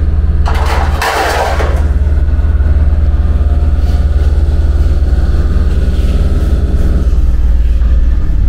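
Steady low machine hum from shop equipment, with a brief clatter of sheet metal about half a second in as a removed body-panel piece is handled.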